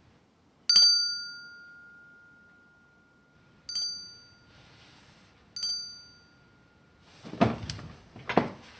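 A small call bell rung three times, each ding ringing out with a clear high tone that slowly fades, being used to summon someone. Louder, irregular noises follow near the end.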